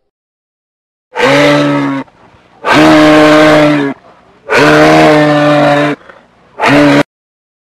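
Moose calling: four loud, drawn-out moaning calls on a steady pitch, the first three about a second each and the last one short, starting after a second of silence.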